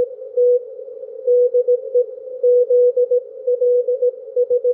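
Morse code (CW) from a Yaesu FT-710 transceiver tuned to 7.007 MHz in the 40 m band: a single steady tone keyed in short dits and longer dahs, with a faint hiss of band noise around it.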